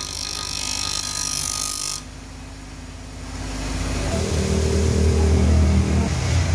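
Wood being ground against a spinning bench-grinder disc, a loud grinding hiss that stops abruptly about two seconds in. The motor keeps humming, and a louder low droning hum from a motor or engine builds from about halfway.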